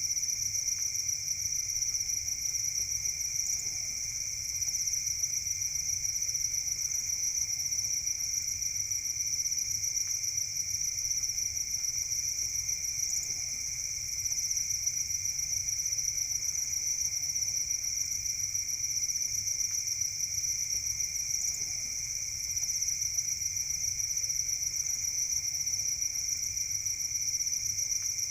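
A mass of farmed crickets chirping together in a continuous high-pitched trill that never breaks.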